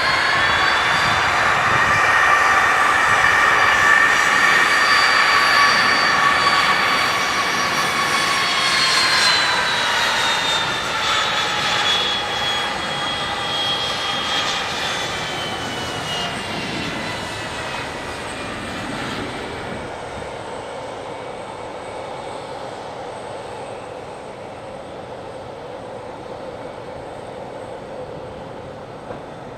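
Jet airliner passing close by. Its engines whine loudest in the first several seconds, the whine drops in pitch about ten seconds in as the plane goes past, and then the sound fades away.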